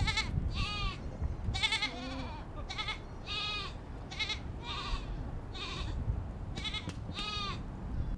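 Goats bleating: about a dozen short, wavering, high calls, one or two a second, over a low rumble.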